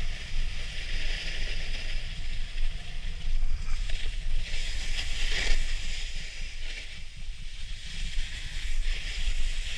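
Snowboard edge scraping and hissing over firm, groomed snow while riding downhill, with wind rumbling on the microphone. The scrape swells in a few surges as the board carves, loudest about halfway through.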